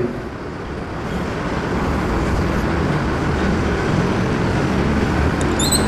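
Steady rumbling background noise like distant road traffic, swelling over the first two seconds and then holding level.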